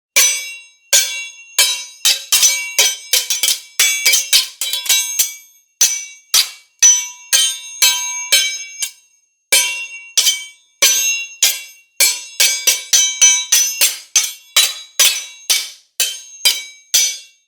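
Metal sword blades clashing again and again: several dozen sharp strikes, each ringing briefly, in quick irregular runs with short pauses between them.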